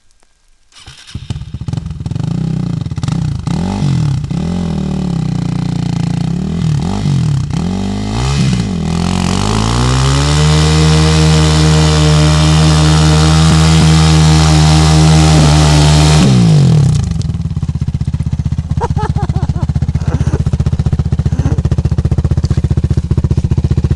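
Bombardier DS650 quad's single-cylinder four-stroke engine starting about a second in, revving in repeated blips, then held at high revs for about six seconds before dropping back to a steady idle about 17 seconds in.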